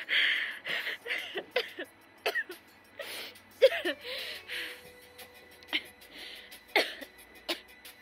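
A woman sobbing: ragged, breathy gasps broken by short whimpering cries.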